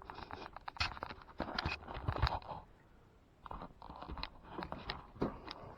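A run of light clicks, knocks and scrapes from handling, with a pause of about a second in the middle before the clicking resumes.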